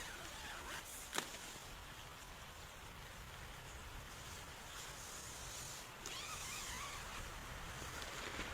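Wind gusting outdoors, with a fluctuating low rumble and a steady hiss, and a single sharp click about a second in.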